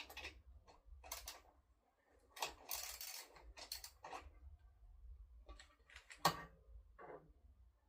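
Hand tools working on the seat bolts: scattered metallic clicks and rattles of a spanner and socket, with a denser patch of clatter about two and a half seconds in and a sharp click near the end.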